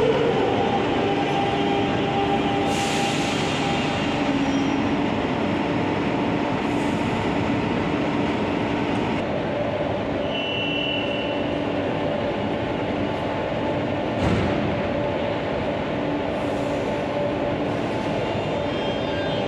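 Madrid Metro 8400-series train standing at the platform after braking to a stop, its onboard equipment giving a steady hum. A brief high beeping sounds about ten seconds in, then a single thud a few seconds later as the doors shut.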